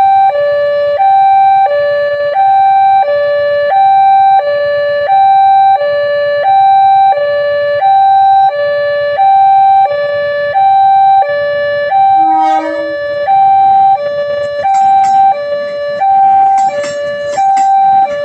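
Railway level crossing warning alarm sounding a loud two-tone siren, alternating between a high and a low tone about once a second. About twelve seconds in a brief burst of other noise cuts across it, and in the last few seconds sharp clacks join it.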